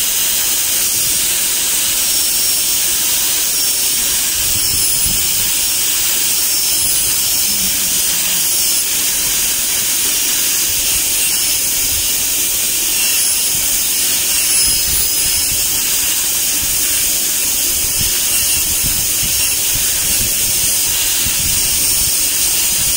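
High-speed air-turbine dental handpiece running with its water spray, a diamond bur cutting a model central incisor: a steady high hiss with a thin, slightly wavering whine on top.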